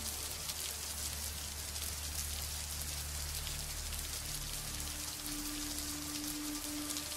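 Underwater sea ambience: a dense, fine crackling hiss like light rain, with a low hum underneath and a steady higher tone coming in about five seconds in.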